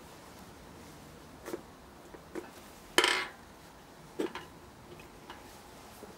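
Steel engine parts of a Daewoo Lanos bottom end clinking and clanking as they are handled during teardown: a few light metallic clinks and one louder clank with a short ring about three seconds in.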